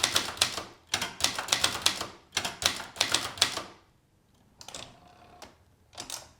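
Keys of a 1977 Brother Deluxe 220 manual portable typewriter striking in quick runs of sharp clacks for about three and a half seconds, then a few lighter, scattered clicks.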